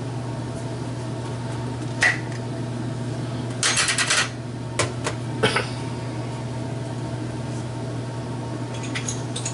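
A glass jar's screw lid is twisted off with a short scraping rattle about four seconds in, and a few light clicks follow as the lid and jar are set down on the stovetop. A steady low hum runs underneath.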